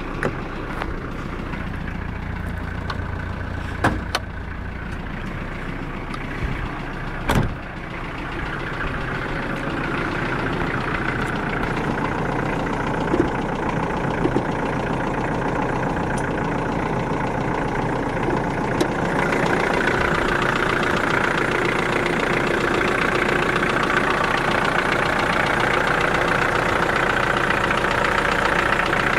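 Hyundai Galloper II engine idling steadily while warming up after a cold start at −5 °C. Two sharp knocks come about four and seven seconds in, and the engine grows louder about two-thirds of the way through.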